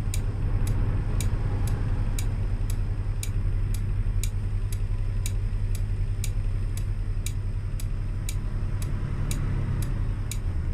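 Car turn-signal indicator clicking steadily, about two and a half clicks a second, over the low rumble of the engine and road inside the cabin.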